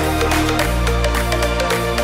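Background music with a steady beat and a deep bass line that moves to a new note about every second.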